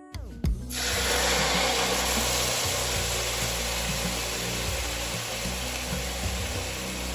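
Beef brisket laid into hot oil in a large pot, landing with a sharp knock about half a second in, then sizzling loudly and steadily as it starts to brown.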